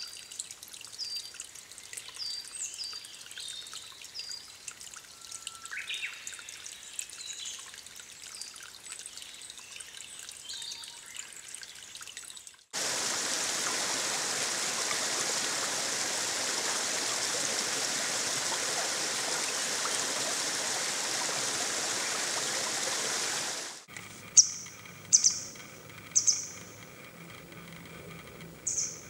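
Natural stream water and wild birds, in three cuts. First, soft trickling water under many small, high bird chirps. About 13 seconds in comes a loud, steady rush of flowing water that lasts about eleven seconds and cuts off abruptly, followed by quieter water and a few sharp, loud bird calls about a second apart.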